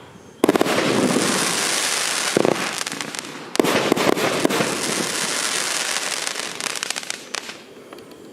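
Multi-shot fireworks cake (F3 battery, 20–30 mm calibres) firing. A burst of shots comes about half a second in and another about three and a half seconds in, each followed by a dense crackle of many small pops that fades out near the end.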